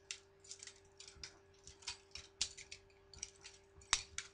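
Butterfly knife (balisong) being flipped: quick, irregular metallic clicks and clacks as the handles swing around and strike each other, with one sharper clack near the end. A faint steady hum sits underneath.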